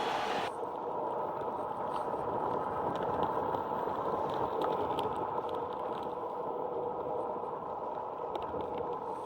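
Onewheel rolling steadily on pavement: a continuous noisy rush of tyre and motor with wind on the microphone, and a few faint ticks.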